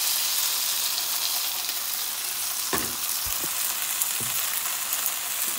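Marinated steak pieces sizzling in a thin layer of hot oil in a frying pan, a steady hiss, with a few light knocks about halfway through.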